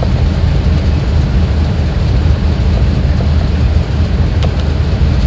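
Low, steady rumble of a 2001 GMC Yukon's 6.0-litre V8 running, an engine with a small random misfire. Two faint clicks come near the end.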